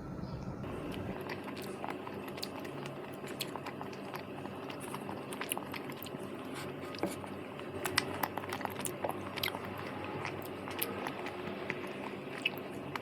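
A person chewing a mouthful of cheese tteokbokki rice cake close to the microphone, with soft wet mouth clicks and smacks scattered throughout, busier in the second half. The chewy rice cake is hard to chew and needs many chews.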